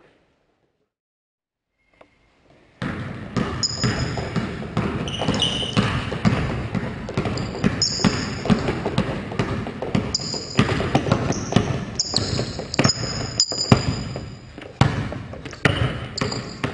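A few seconds of silence, then a basketball dribbled hard and fast on a hardwood gym floor, with short sneaker squeaks on the hardwood as the players cut and slide, in a large echoing gym.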